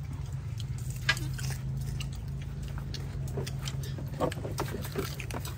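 Scattered clicks and light knocks of people eating at a table, hands and utensils on bowls and plates, with one sharper click about a second in, over a steady low hum.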